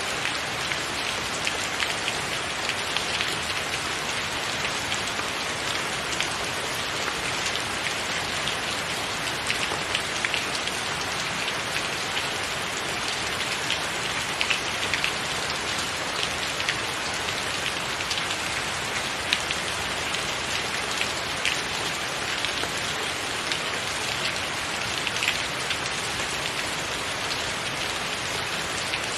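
Steady rain falling on a tiled roof: an even hiss of rainfall with many separate drops ticking sharply through it.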